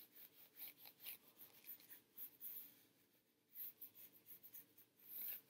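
Faint pencil strokes on sketchbook paper: short, scratchy strokes coming and going unevenly, with a brief pause a little past the middle.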